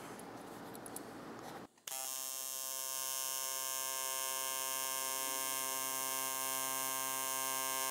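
Faint room noise, then, after a brief break about two seconds in, an AC TIG welding arc buzzing steadily as it runs a test bead on oxide-covered scrap aluminium to check the balance setting.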